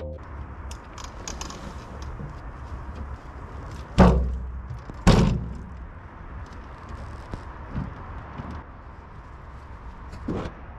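A wheelbarrow of soil being tipped and emptied onto a pile: loose earth scrapes and crunches, with two loud knocks of the barrow about a second apart near the middle.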